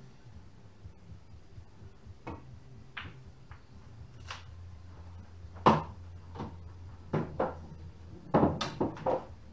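Pool balls clicking and knocking: a cue striking the cue ball and balls colliding on the table, in a series of sharp separate knocks, the loudest about halfway through and a quick cluster of four or five near the end. A low steady hum runs underneath.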